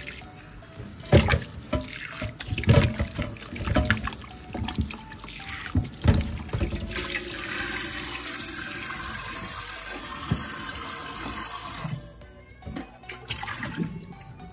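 Kitchen tap water running into a metal pot in a steel sink while a raw beef joint is rubbed and turned by hand, with irregular splashes and sloshing. The tap then runs steadily into the pot for several seconds and stops suddenly about twelve seconds in.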